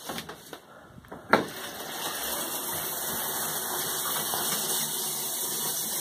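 A sharp click, then water comes on from a rainfall shower head about a second and a half in and sprays steadily.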